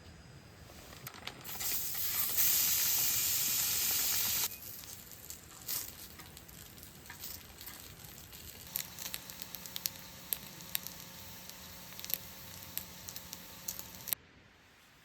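Food frying on a hot pan over a campfire: a loud sizzling hiss that stops abruptly, then quieter sizzling with many sharp spitting pops, cut off suddenly near the end.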